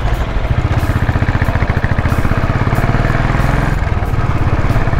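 Motorcycle engine running steadily, with an even pulsing beat.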